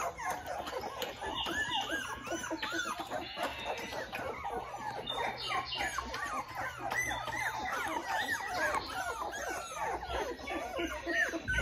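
A litter of young Australian Shepherd puppies squeaking and whining, many short high cries overlapping without a break.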